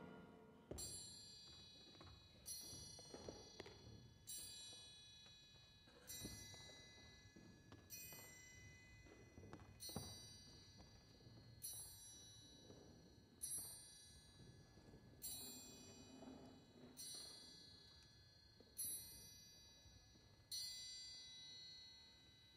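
A deep bell chime in the ballet score struck twelve times, evenly, about one stroke every two seconds, each ringing on before the next. Faint thumps sound underneath.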